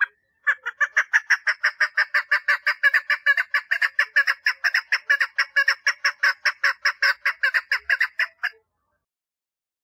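Female chukar partridge giving its mating call: a rapid, even run of short notes at about five a second, lasting some eight seconds and stopping abruptly.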